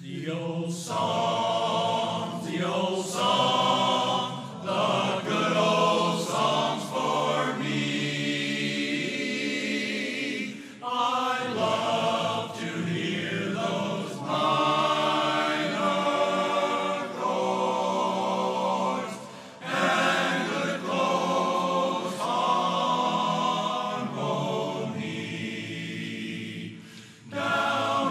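Men's barbershop chorus singing a cappella in close harmony, in phrases with short breaks between them.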